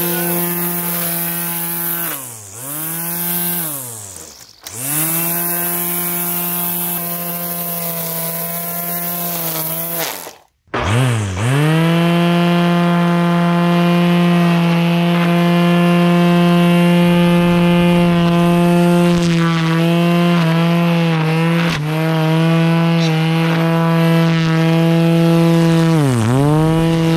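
Craftsman corded electric string trimmer running with a steady whine. The motor winds down and back up twice in the first few seconds and stops about ten seconds in. It then starts again and runs on, sagging briefly twice near the end.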